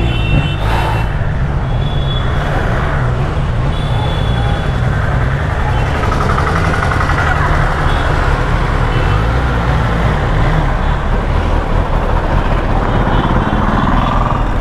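Superbike engine running steadily at low speed, with rushing noise over it, while a few short high beeps come and go.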